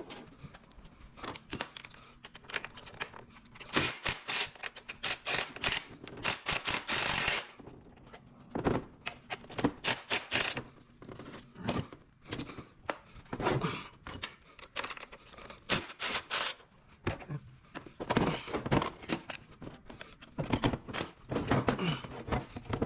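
Hand tools working on a transmission case: rapid socket-ratchet clicking in spells, mixed with metal knocks and clinks of sockets and parts, as the speed sensor is being removed.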